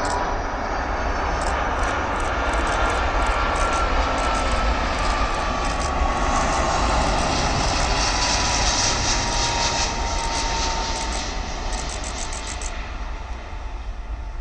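Jet airliner landing: a steady jet engine roar that swells to its loudest about halfway through and then fades, with a thin whine falling slowly in pitch as the plane rolls past.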